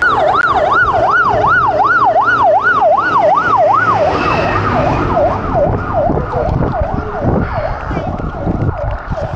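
Fire truck siren on a fast yelp, its pitch sweeping up and down about three times a second. Loud for the first four seconds, then fainter.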